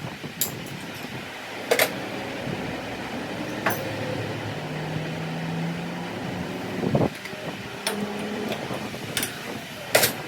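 Workshop sounds during the repair of a wheel spanner socket: about half a dozen sharp clinks and knocks of tools on metal, scattered at irregular intervals over a steady background hum like a fan.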